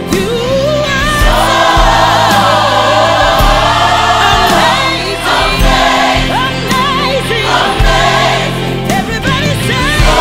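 Gospel music: a choir singing with vibrato over an accompaniment with deep bass notes recurring every second or two.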